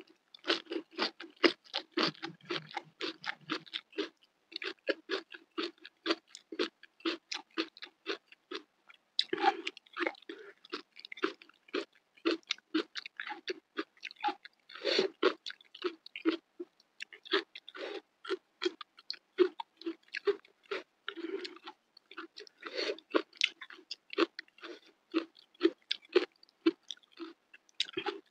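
Close-miked mouth chewing a handful of rice and bean sprouts with chili sambal: a quick, steady run of short, wet chewing clicks with a few brief pauses.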